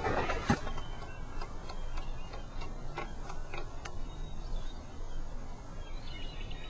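A pigeon landing on a car roof with a brief flutter of wings at the start, then light, irregular clicks as its claws tap on the metal roof while it walks.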